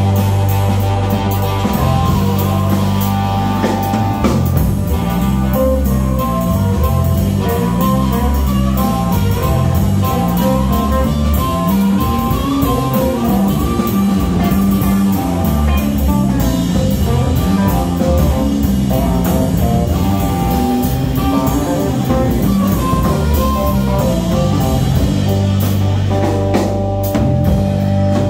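Live blues-rock band playing an instrumental passage: electric guitar, electric bass riffing in a repeating pattern, drum kit keeping a steady beat, and a harmonica played through a microphone.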